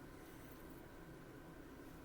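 Near silence: room tone, a steady faint hum and hiss.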